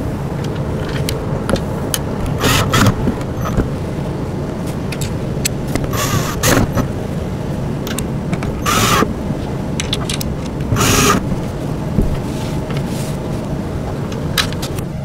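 Cordless drill driving short bolts into metal L brackets on a wooden bassinet base, running in several short bursts, over a steady low hum.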